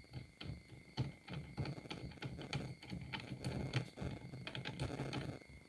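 Side handle being screwed by hand into an angle grinder fitted with a chainsaw adapter: a quick, irregular run of small clicks and rattles from the handle's threads and the plastic and metal parts. A faint steady high whine sits underneath.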